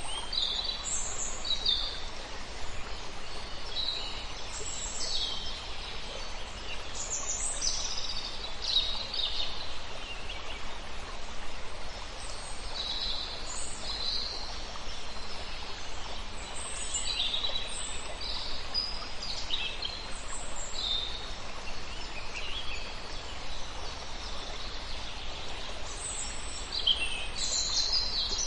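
Wild birds chirping and calling in many short, high-pitched notes, over a steady background rush of noise.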